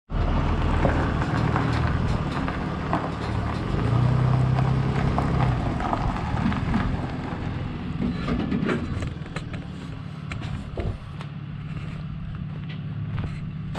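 Pickup truck engine idling steadily, with footsteps crunching on gravel and scattered clicks on top.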